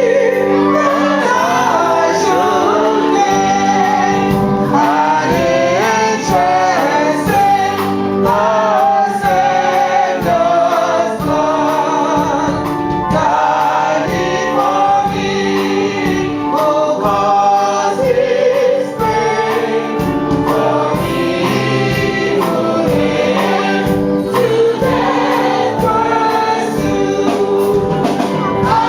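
Choir singing gospel music without a break.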